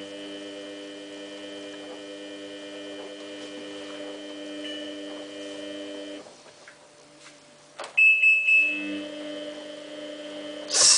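Samsung WF8804RPA washing machine giving a steady electric buzz while it tries to fill, with hardly any water getting in. The buzz stops about six seconds in. About eight seconds in there is a click and a loud high beep lasting about a second, then the buzz comes back, followed by another click near the end. The machine soon shows an LE code.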